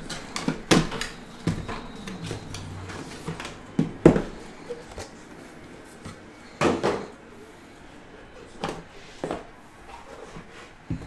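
Handling sounds from a metal trading-card tin and its cardboard sleeve: a string of separate knocks and clunks, the loudest about four seconds in, as the tin is set down on a mat and its lid is worked open.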